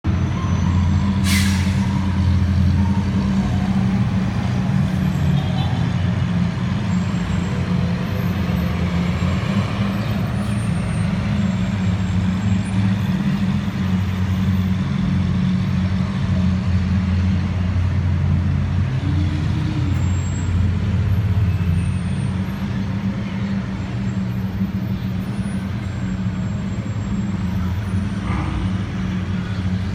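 Engines of a slow-moving line of sports cars and motorcycles making a steady low drone that barely changes pitch, with a brief sharp click about a second and a half in.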